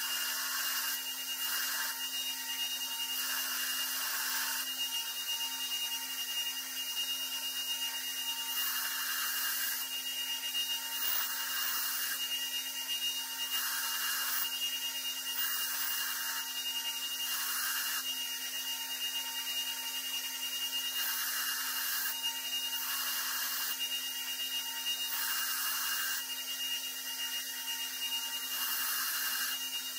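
Belt grinder running steadily with a constant hum, while steel is pressed against the abrasive belt in about a dozen separate passes of roughly a second each, each pass a loud grinding hiss, grinding the forged axe head.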